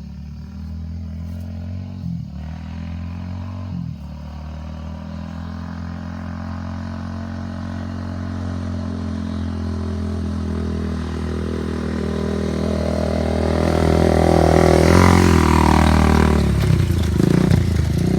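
Honda ATC350X three-wheeler's single-cylinder four-stroke engine running, growing gradually louder and slightly higher. It is loudest about fifteen seconds in, then drops back with a rougher, uneven sound near the end.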